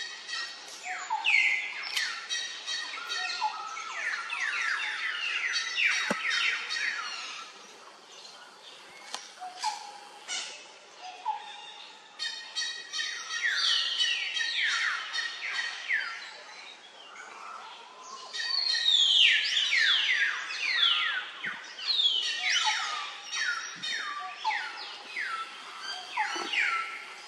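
Birds singing: runs of quick, falling chirps, coming in bursts with short pauses and busiest in the second half.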